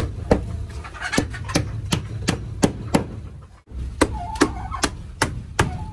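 A hammer driving nails into wooden boards: a steady run of sharp strikes, about two and a half a second, that stops abruptly twice.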